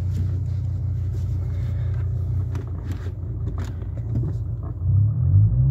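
Mercedes-Benz C270 CDI's five-cylinder diesel engine running as the car drives slowly, a steady low drone heard from inside the cabin. Near the end the revs and level rise as the engine is given more throttle.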